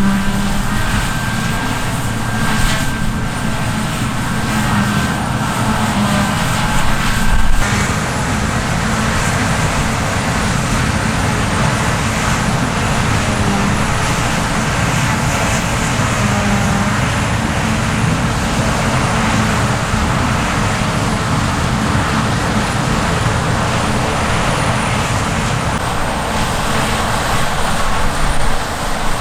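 Large harvest machinery running steadily: a low engine drone under a dense mechanical rush. The sound changes abruptly about seven and a half seconds in.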